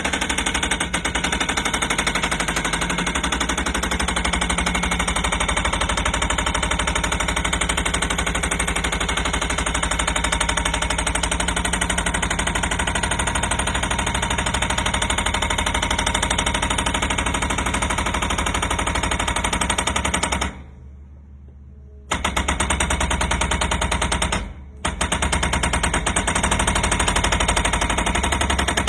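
THOR TH50S silenced hydraulic pile driver hammering a steel pile down with rapid, steady blows. It stops for about a second and a half about twenty seconds in, then again briefly a few seconds later, before hammering on.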